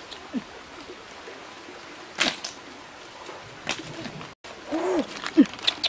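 A bird cooing: a few short, low calls that rise and fall in pitch, the clearest near the end. A sharp click comes about two seconds in.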